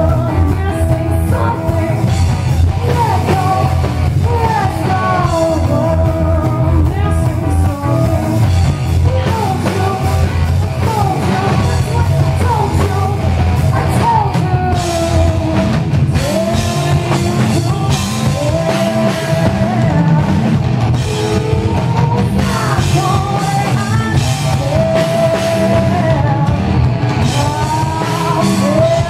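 Live rock band playing a song: a woman's lead vocal sung into a microphone over electric guitar, bass guitar and drum kit.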